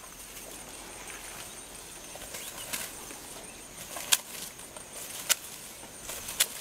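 Asian elephant tearing up grass with its trunk: rustling, with several sharp snaps of stems breaking or a clump being swung, about one a second in the second half.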